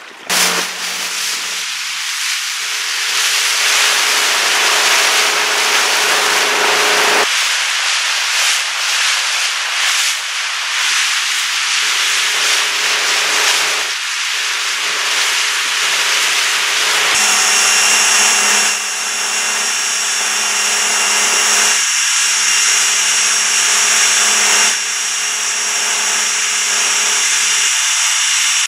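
Boat engine noise mixed with rushing water: a loud, steady rasping noise carrying a low hum and higher whining tones. It changes abruptly about 7 and 17 seconds in, and a high steady whine joins after the second change.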